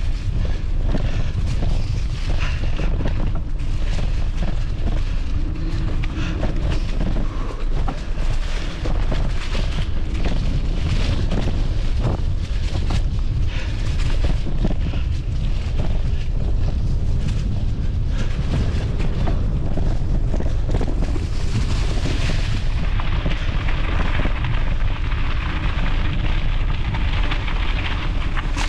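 Wind buffeting the microphone in a steady heavy rumble while a hardtail mountain bike is ridden along a trail, with frequent clicks and rattles from the bike throughout.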